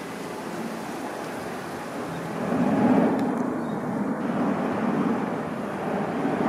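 Boeing 787 Dreamliner's Rolls-Royce Trent 1000 jet engines at climb power after take-off, a steady low rumble that grows louder about two and a half seconds in.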